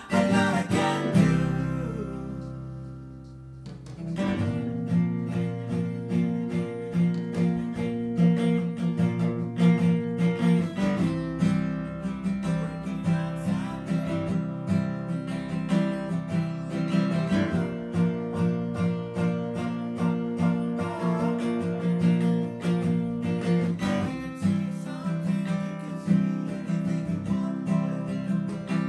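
Acoustic guitar strummed along with a recorded backing track. A chord is struck about a second in and left to ring and fade, and steady rhythmic strumming picks up again about four seconds in.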